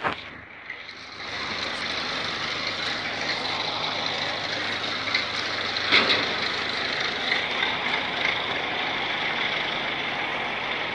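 Truck engine running steadily at idle, with one sharp knock about six seconds in.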